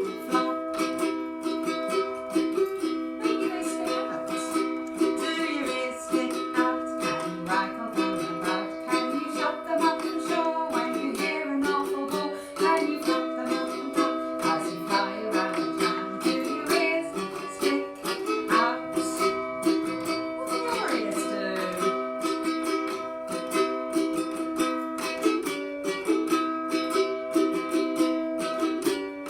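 Ukulele strumming chords in a steady rhythm, in a small room.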